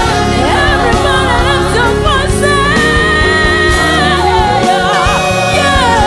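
Gospel music: singing voices with vibrato over a steady band accompaniment with bass.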